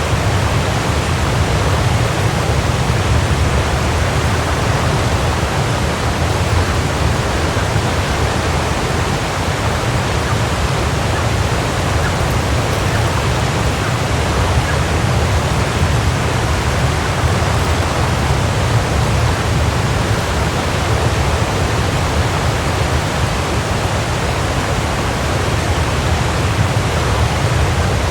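Waterfall: a steady, even rush of falling water, strongest in its deep low rumble.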